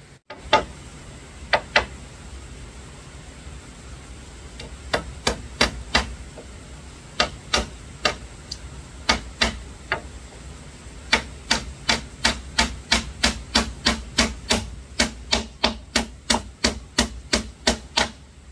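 Hammer blows. A few scattered strikes come first, then short groups, then a steady run of about two blows a second through the second half.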